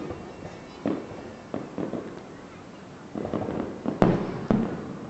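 Fireworks shells bursting overhead at irregular intervals: about half a dozen bangs, each trailing off, with the loudest pair about four seconds in.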